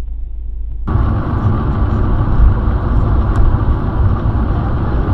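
Steady road and engine noise heard from inside a moving car, cutting in abruptly about a second in after a low rumble.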